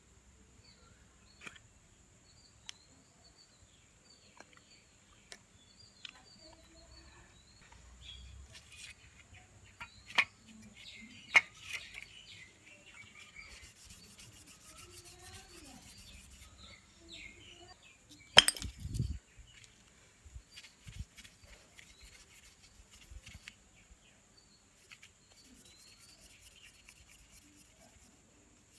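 Hand work on a hard object: intermittent rubbing and scraping strokes, a few sharp knocks and one loud knock about two-thirds of the way through. Small birds chirp faintly in the background.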